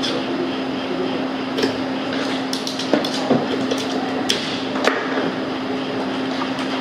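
Sharp metallic clicks and taps of steel engine parts and a screwdriver knocking against a 70cc motorcycle engine's aluminium crankcase during hand assembly, about six in a scattered run, over a steady low hum.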